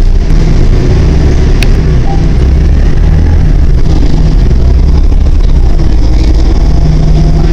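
Inside a New Flyer D40LF diesel city bus under way: steady engine drone and road rumble, with one short click about one and a half seconds in.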